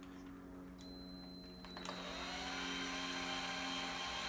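Cordless power drill/driver spinning a hex bit to drive a screw into a plastic RC-car rear bearing carrier. Its motor whine starts faint about a second in and runs louder and steady from about two seconds in.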